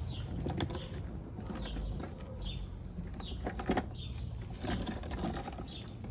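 Small birds chirping over and over, with a few scuffs and knocks from a mechanic shifting on a wheeled creeper under a car. The loudest knocks come about half a second in and just after the halfway point.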